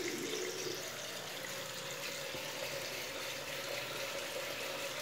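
Water running steadily from a tap, a continuous even rush.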